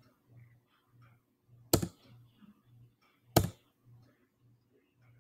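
Sharp computer clicks, like a mouse or keys being pressed close to the microphone, coming about every second and a half to two seconds. Underneath is a faint low hum that pulses in an even beat.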